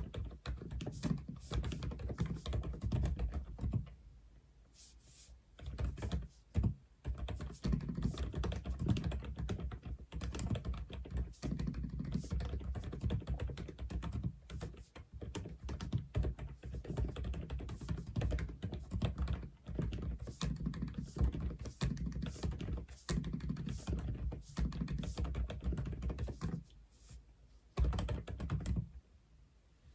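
Typing on a 독거미 (Aula) F87 mechanical keyboard: a fast, uneven stream of keystrokes with deep clacks, pausing briefly about four seconds in and again near the end.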